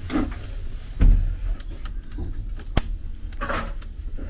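Several sharp clicks and knocks, the loudest about a second in and just before three seconds, over a steady low hum.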